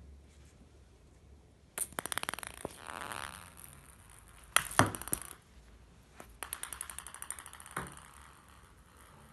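A small light ball, batted by a cat, bouncing and skittering on a wooden floor: three runs of quick clicking bounces that come closer together as they die away. The first is about two seconds in, the loudest comes near the middle, and the last is a little later, followed by a single knock.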